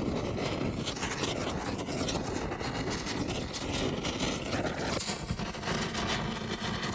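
Logo intro sound effect: a dense, rumbling, crackling noise. About five seconds in it shifts suddenly and a low steady hum comes in underneath.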